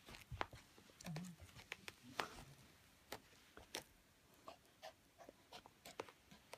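Scattered faint clicks and rustles as a Shiba Inu puppy rolls and twists on a rug, squirming against its first collar.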